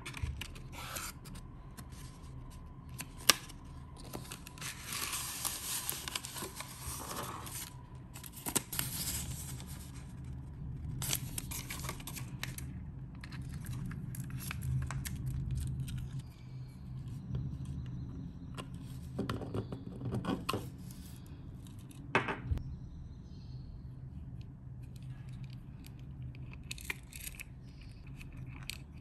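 Close-up handling of a lotion package and its small metal parts: paper and packaging rustling and crinkling, sharp clicks as metal pieces are set down on the desk, and a light metallic jangle of a chain.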